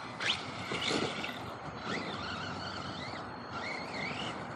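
Electric RC monster truck on a 4S brushless motor, driven at a distance, its motor whine rising and falling with the throttle, with a couple of knocks from hits or landings in the first second.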